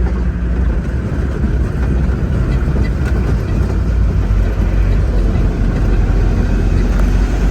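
Heavy engine running steadily, a constant low rumble.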